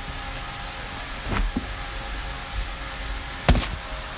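Steady mechanical hum of a shop's air conditioning, with a soft knock about a second in and a sharper, louder knock near the end as folded jeans are handled and set down on a counter.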